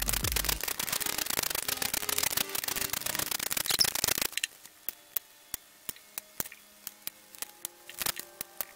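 Ratchet wrench clicking rapidly while loosening the camshaft bearing-cap nuts on a BMW M50B25 cylinder head. After about four seconds the fast run stops and only separate, slower clicks and light metal ticks remain.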